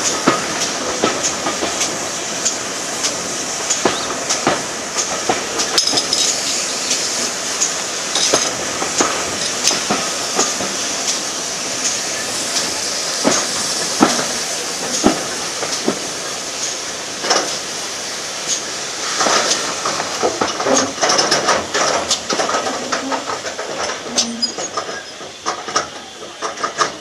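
Train running along the track: a steady rush of wheel and rail noise with many irregular sharp clicks and knocks, fading in the last second or so.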